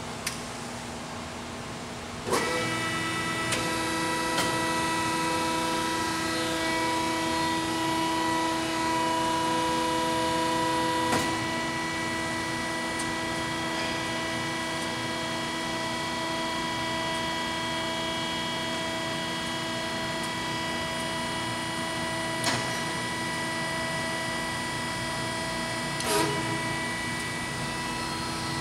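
Marvel Series 15A9 automatic horizontal band saw starting up about two seconds in and running with a steady, many-toned whine, with a few sharp clunks along the way.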